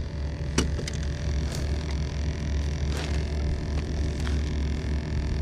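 A steady low mechanical hum on the boat, with a few light clicks and knocks as the landing net holding a freshly caught walleye is handled.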